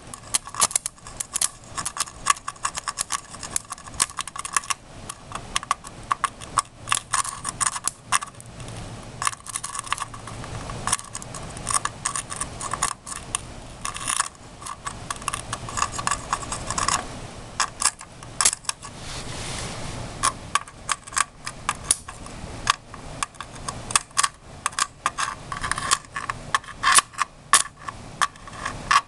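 Crackling and snapping of a low-voltage electrical arc as a wire from a 13.8 V, 23 A power supply, shorted through the board, is scraped over a Dell motherboard's circuitry, burning it. The snaps come in dense, irregular clusters, with a stretch of steadier hiss a little past the middle.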